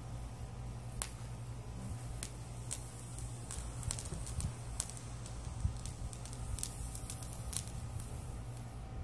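Small firework burning with a sparking green flare, giving scattered faint crackles and pops over a steady low hum.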